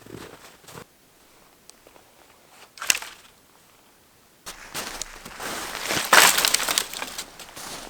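Crunching and cracking in the snow: one sharp crack about three seconds in, then about three seconds of loud, dense crunching and crackling, louder near the middle of that stretch.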